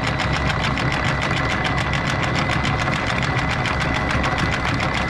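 Electric anchor windlass running steadily, hauling in the anchor chain to take up the slack, with a steady high motor whine over a rapid, even ticking of the chain links.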